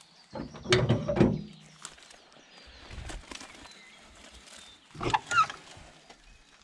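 Two brief bursts of knocking and rustling, about a second in and again about five seconds in, with faint bird chirps in the background.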